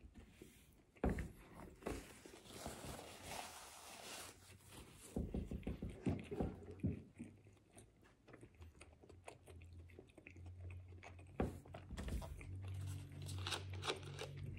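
Close-up chewing of a ham and cheese sandwich on soft homemade bread, with a few knocks from hands and objects. Near the end, a run of clicks as the cap of a plastic soda bottle is twisted open.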